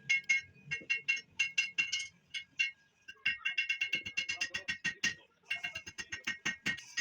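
Rapid metal-on-metal tapping, each strike ringing at the same high tones. The strikes come in quick runs with brief pauses, fastest about halfway through.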